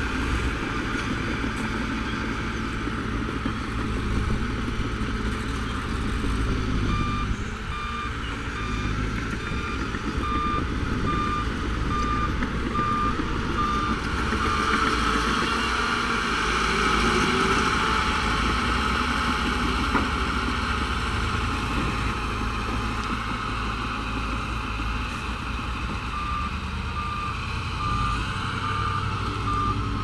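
Diesel engines of a crawler bulldozer and tipper dump trucks running, with a vehicle's reversing alarm beeping about twice a second for several seconds, starting about a quarter of the way in and again near the end. The machine noise swells about halfway through.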